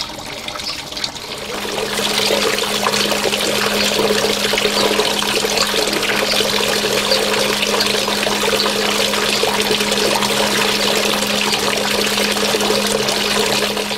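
Water from hydroponic outflow pipes pouring and splashing into a reservoir through a stainless mesh filter, with a steady low hum underneath. The pouring gets louder about a second and a half in, then stays steady.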